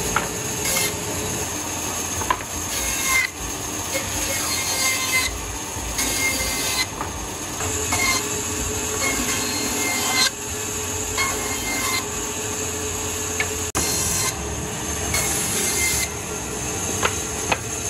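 Large band saw running, its blade cutting through wooden boards in a series of passes. The hiss of the cut swells and eases as each board is fed through.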